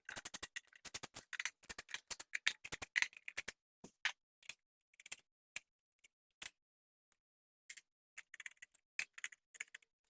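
Rapid clicking of a hand ratchet for about three and a half seconds, then scattered single clicks and ticks, as from working nuts off the fender bolts.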